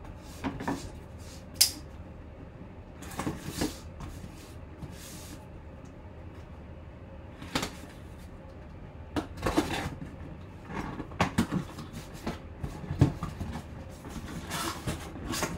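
Cardboard packaging of a sealed mini helmet box being handled and opened: scattered knocks, scrapes and short rustles.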